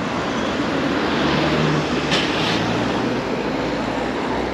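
Passing city road traffic: a steady wash of tyre and engine noise, with a vehicle's low engine hum through the middle and a short hiss about two seconds in.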